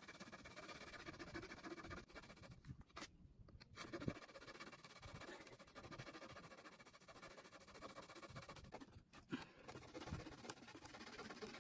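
Near silence: faint background noise with a few small clicks and rustles, one sharper click about four seconds in.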